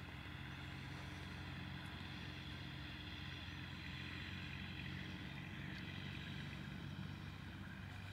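Steady drone of an engine running at constant speed, its pitch unchanging.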